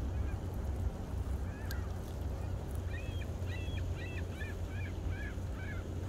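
Gulls calling from a flock on lake ice: a couple of single calls, then a quick run of about ten repeated calls from about halfway through, over a steady low rumble.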